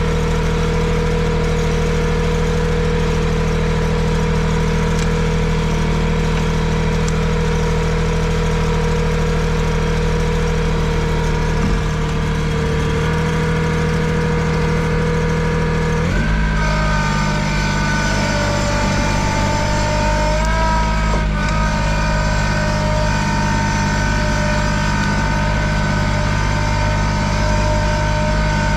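Cub Cadet 1512 garden tractor's engine running steadily, then stepping up to a higher, steady pitch a little past halfway as it is throttled up to skid a chained log.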